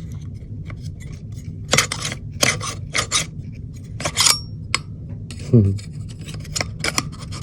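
Sharp clicks and scrapes of small plastic and metal parts being handled, as the dust cover, its spring and a small pin are worked into an airsoft CZ Scorpion Evo's receiver. The clicks come in quick groups, under a steady low hum.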